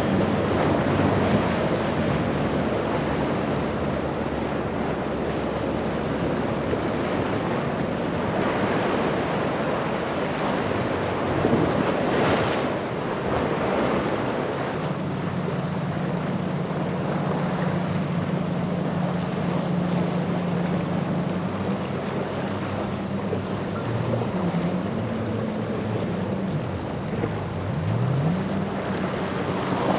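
Outboard-powered boats running at speed through rough water: hulls slapping the waves and wake spray hissing, with wind buffeting the microphone. From about halfway a steady low engine drone comes in, and near the end the engine note rises in pitch.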